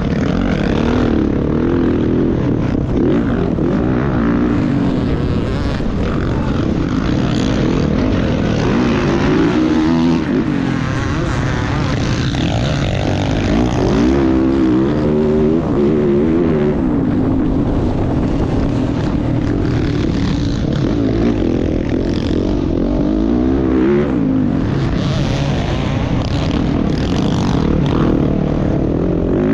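Dirt bike engine revving hard under way, its pitch rising and falling again and again as the throttle opens and closes.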